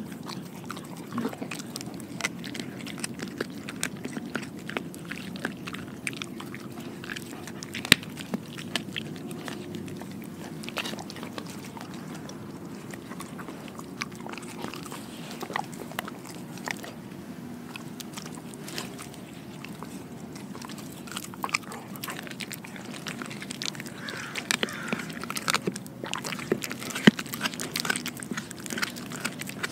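A dog biting and chewing raw pork skin, with irregular wet chomps and sharp clicks of teeth. There is one loud snap about a quarter of the way in, and the clicks come thicker near the end.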